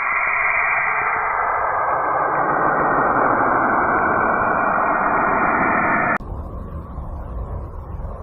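Spacecraft radio emissions from a planet converted into audible sound: a dense, loud hiss that spreads lower as it goes. About six seconds in it cuts off abruptly, and a different converted recording begins, a deep rumble with faint hiss over it.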